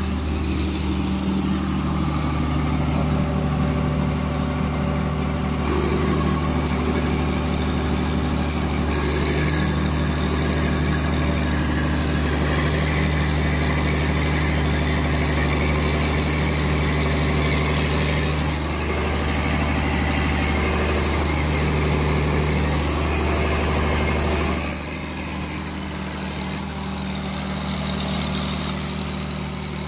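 Cummins diesel generator set running at a steady speed, an even engine drone. About 25 seconds in it becomes noticeably quieter.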